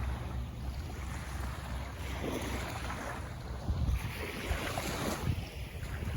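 Wind buffeting the microphone over a steady low rumble, with washing water in the background.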